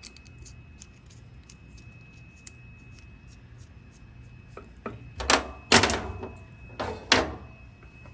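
Clicks and sharp clacks of a WEH TW111 HVAC quick-connect fitting being handled and worked: quiet ticking at first, then about four loud clacks in the second half.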